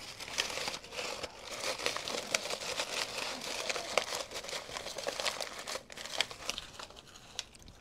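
Dry corn husks crinkling and crackling as they are packed and pressed down by hand into a pot of hot water to soak and soften for tamales. The crackling is dense and irregular and thins out near the end.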